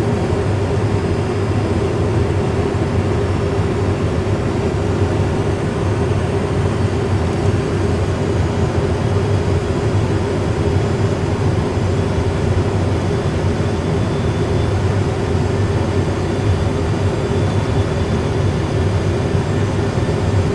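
Steady cockpit noise of an Airbus A320 full flight simulator, the simulated aircraft's engine and airflow sound on approach, with a constant low hum and a second hum underneath.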